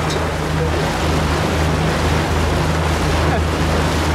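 Tour boat's engine running at a steady cruising hum, under a constant rush of water and wind as the boat moves along.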